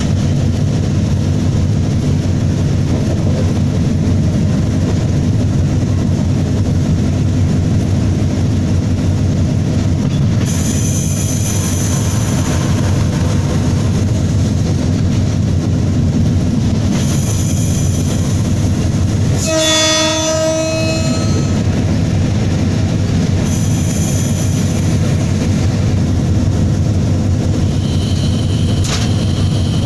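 Hitachi diesel-electric locomotive running steadily under way, its engine giving a deep, even drone. About two-thirds through, its horn sounds once for about a second and a half, with a wavering, off-key tone like an out-of-tune flute. A few brief high whines come and go.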